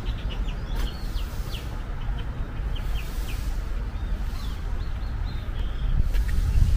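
Small birds chirping, a scatter of short, quick calls, over a steady low rumble.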